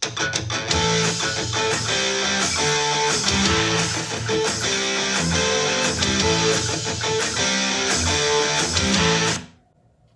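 A guitar-led music track with a steady beat, played back through a Bose SoundLink Mini portable Bluetooth speaker for a sound test. It cuts off about nine and a half seconds in, leaving near silence.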